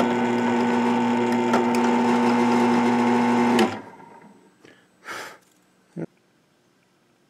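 Benchtop drill press running steadily with a twist bit drilling into an aluminum block; the motor hum cuts off abruptly about three and a half seconds in. A brief rustle and a single click follow.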